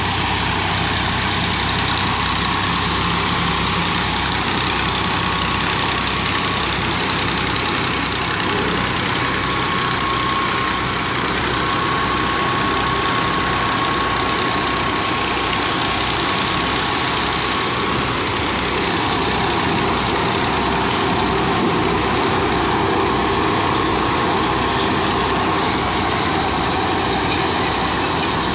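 Tractor engine running steadily, driving a PTO-powered corn sheller whose drum adds a dense mechanical whirr, with a low rhythmic throb.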